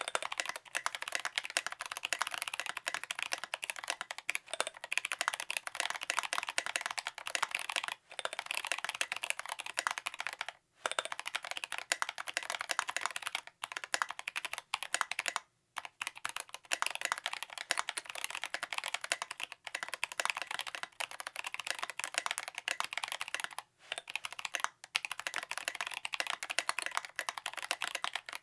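Fast, continuous typing on a custom 60% mechanical keyboard with a brass plate, lubed Zealios V2 tactile switches on 67g springs and SA-profile keycaps, a dense run of keystrokes broken by a few brief pauses.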